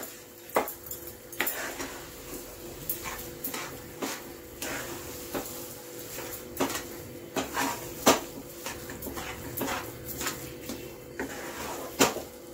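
Spatula scraping and knocking against a nonstick pan while stirring a thick semolina and sugar mixture, in irregular strokes about once a second, the loudest near the end.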